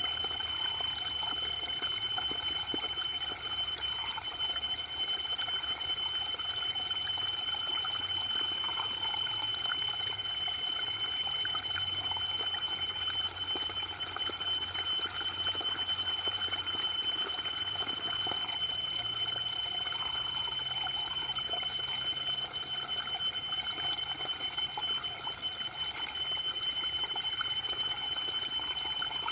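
Waterfall water falling and splashing in a steady, even rush, with a constant high-pitched whine over it.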